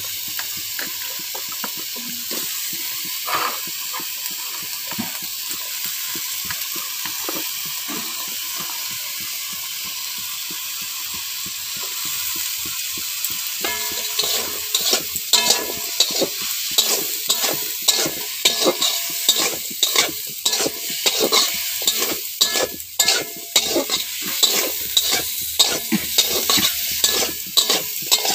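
Cut potato sticks frying in hot oil in a metal kadai, a steady sizzle. About halfway through, a metal spatula starts stirring them, scraping against the pan in quick repeated strokes over the sizzle.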